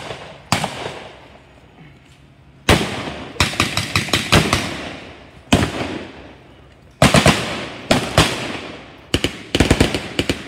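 Blank gunfire in a WWII battle re-enactment: single shots and short rapid bursts of automatic fire, each report trailing off in an echo, with the bursts coming faster and closer together near the end.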